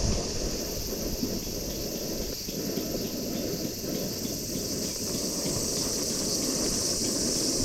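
Outdoor ambience of insects chirring in a steady chorus, over a low, even rushing noise.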